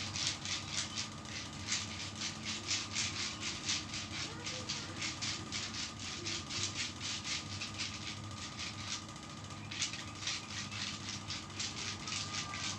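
Hand rubbing briskly over bare skin during a massage, a quick even rhythm of about four to five strokes a second that pauses briefly about nine seconds in.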